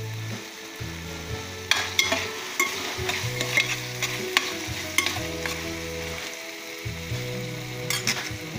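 Chopped tomato and onion sizzling in hot oil in a stainless steel pan, with a utensil stirring and clinking against the pan in a run of sharp clicks from about two to five seconds in, and twice more near the end.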